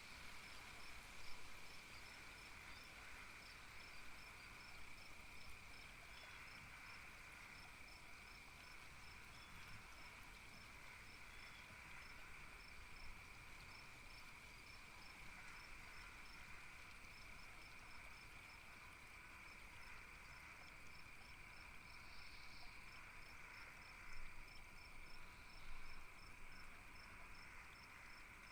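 Faint night-time insect chorus: a steady high trilling, with crickets chirping in an even pulse about two or three times a second.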